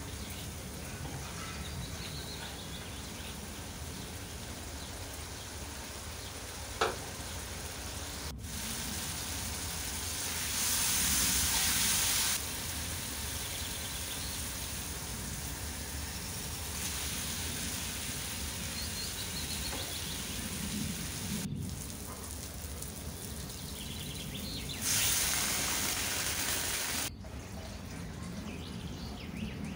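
Spiced masala frying and sizzling in oil in a pan as it is stirred with a spatula: a steady hiss, with two louder spells of sizzling and a single sharp tap about seven seconds in.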